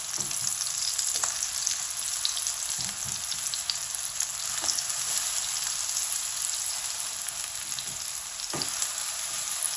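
Grated turnip and egg patties sizzling steadily in shallow oil in a non-stick frying pan, with small crackles throughout. A few soft scrapes of a spatula come as the patties are turned over.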